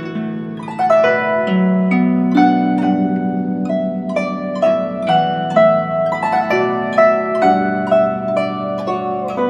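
Instrumental music on a plucked string instrument: a melody of quickly plucked notes over ringing chords.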